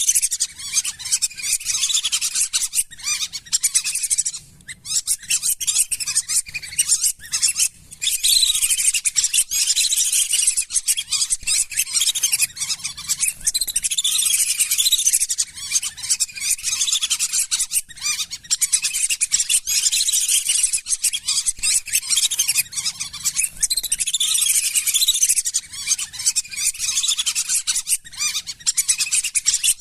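A flock of lesser whistling ducks calling without pause, many high, thin whistles overlapping one another, with short lulls about four and eight seconds in.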